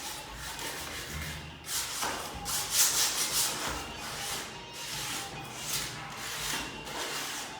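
Hand sanding with sandpaper: a run of rasping back-and-forth strokes, smoothing a surface for paint.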